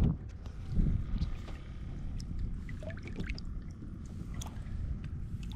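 Water sloshing and dripping with small scattered splashes, over a steady low rumble of wind on the microphone.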